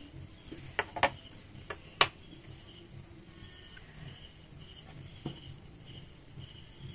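A few sharp taps and knocks as a wooden ruler and tailor's chalk are handled on a wooden table, the loudest about two seconds in. Faint pulsing chirps of crickets run underneath.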